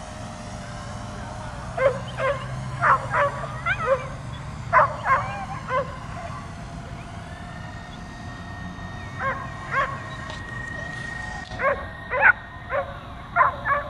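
A dog barking in quick bunches of two or three sharp barks, with a lull in the middle, at a drone flying overhead. A steady high whine from the drone runs underneath.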